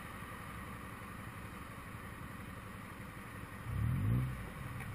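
Motorcycle engine idling steadily, with a short rev about four seconds in.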